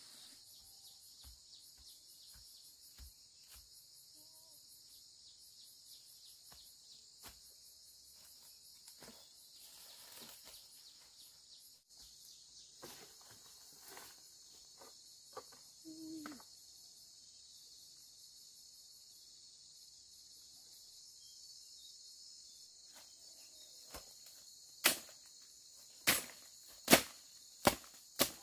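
A steady, high-pitched insect chorus, pulsing evenly. Near the end, about five sharp knocks roughly a second apart, much louder than the insects.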